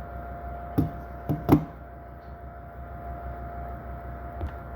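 A few light clicks and taps from the iPhone's parts being handled during reassembly, three close together about a second in, over a steady background hum.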